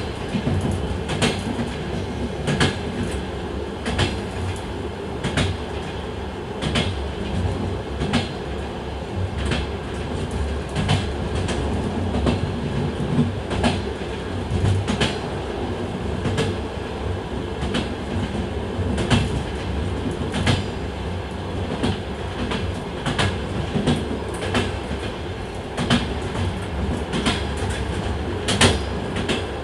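Train running along the track: a steady rumble of wheels on rails, with sharp clickety-clack clicks about once or twice a second as the wheels pass over rail joints.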